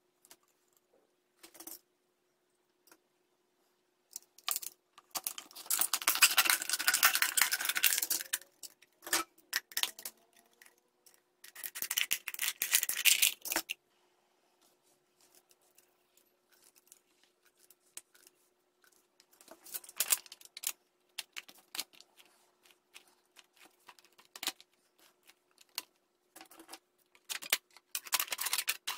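Hands handling matchboxes and craft materials on a tabletop: scattered taps and clicks, with two longer stretches of dense scratchy noise about five and twelve seconds in. Near the end, aluminium foil rustles as it is cut.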